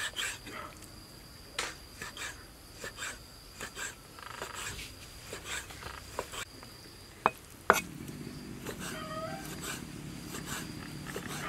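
Cleaver slicing and chopping raw pork on a wooden chopping block, with irregular knocks and two sharp chops about seven seconds in. After that a steady low rumble sets in, with a short wavering animal call near the end.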